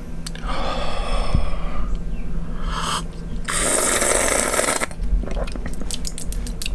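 A man slurping coffee from a mug: two long, loud, hissing slurps that draw air in with the coffee as he tastes it, then a quick run of small mouth clicks near the end.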